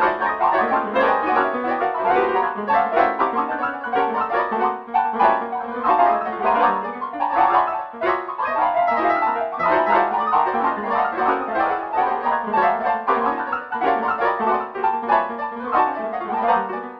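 MIDI piano music: a dense, continuous stream of quick notes with almost no bass.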